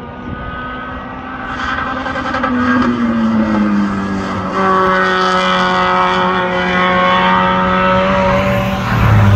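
Spec Miata race car's four-cylinder engine heard from trackside, growing louder as the car comes closer; its note dips slightly in pitch, then holds steady at high revs.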